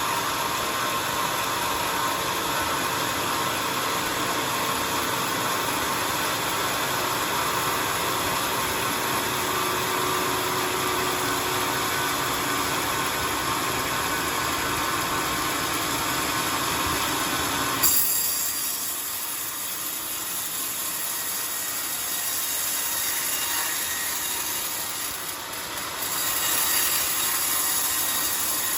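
Sawmill bandsaw running and cutting coconut wood, a steady noisy whir. About two-thirds of the way through the sound changes abruptly to a thinner, hissier sound.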